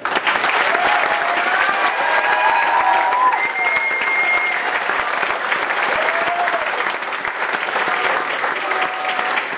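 Crowd applauding, breaking out suddenly and holding steady, with a few voices cheering and calling out over the clapping.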